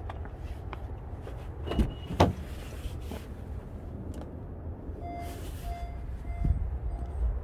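A Honda's driver's door being opened, with two sharp latch clicks about two seconds in, then the car's electronic warning chime beeping about five times in quick succession.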